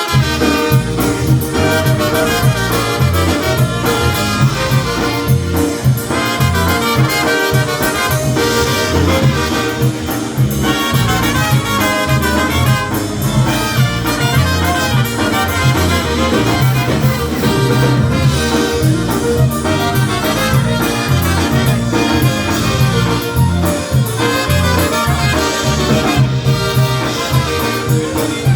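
Live polka band playing the instrumental introduction of a song, with a strong bass line and a steady beat.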